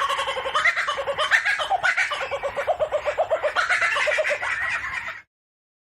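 Laughing kookaburra calling: a rapid, rhythmic run of chuckling notes that cuts off suddenly about five seconds in.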